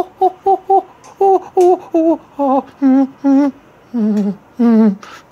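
A person's voice crooning a rapid run of short sing-song syllables, each a brief pitched note, warbling on some. The syllables come quickly at first and get longer and lower toward the end.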